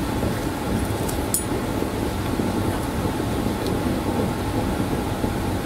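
Steady fan-like hum and hiss of room air handling, with two faint light clicks a little over a second in.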